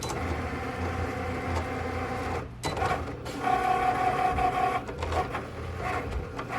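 Cricut Maker vinyl cutter cutting vinyl letters: its motors whine in stretches as the blade carriage and cutting mat move, with brief pauses between moves.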